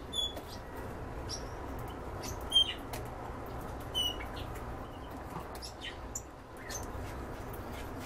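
Canaries giving a few short, sharp chirps, the loudest about two and a half seconds in, with fainter high calls between, over a low steady hum.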